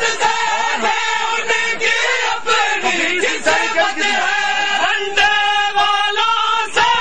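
Crowd of men chanting a noha, the Shia lament, together in loud, continuous unison, with a few irregular sharp knocks cutting through.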